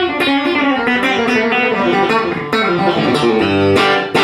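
Electric guitar: a Tom Anderson Telecaster-style guitar with hand-wound Nokkel classic Telecaster pickups, played through an amp. A quick run of single notes comes first, then chords are struck and left to ring.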